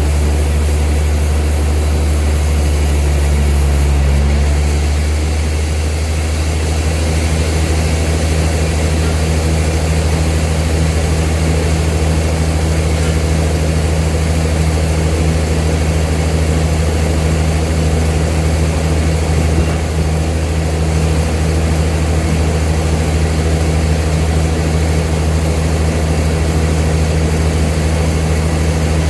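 Old sawmill machinery running steadily with a low, loud drone. A higher tone in it fades about four to five seconds in.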